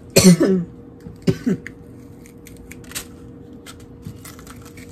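Two short bursts of a person's voice, a louder one just at the start and a shorter one about a second later, followed by faint scattered clicks and taps over a faint steady hum.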